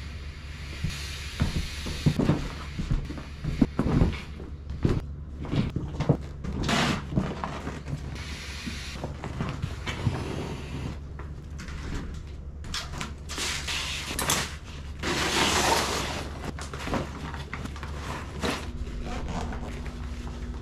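An inflatable kayak being handled and packed up: irregular knocks and clatter, with stretches of rustling and hissing noise, the longest about two-thirds of the way in. A steady low hum runs underneath.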